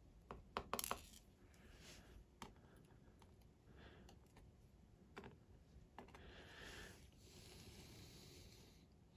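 Small metallic clicks and clinks of tiny lock pins and tools being handled while a dimple lock cylinder is taken apart: a quick cluster of sharp clicks about half a second in, a few single clicks later, and a soft rustle near the end.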